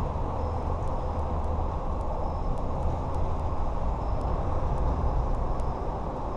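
Steady low rumbling outdoor noise with no distinct events, with faint, evenly spaced high ticks over it.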